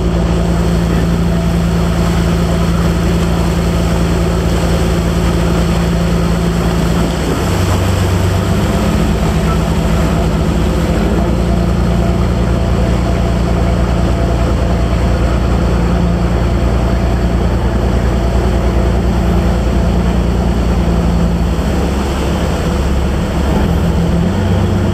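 A boat's engine running loudly and steadily over a rushing noise; its note changes about seven seconds in and again near the end.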